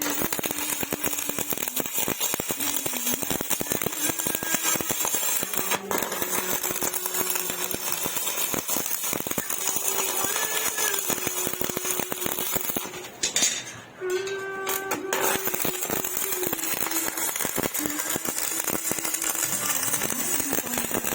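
Stick-welding arc crackling and sputtering steadily, with a brief break about two-thirds of the way through before it picks up again.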